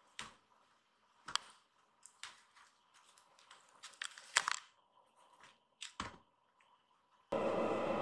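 Kittens' paws and claws scuffing and tapping on tatami mats as they pounce on a string toy: a handful of short, sharp scratches and taps spread out over several seconds. Near the end a louder steady noise starts abruptly.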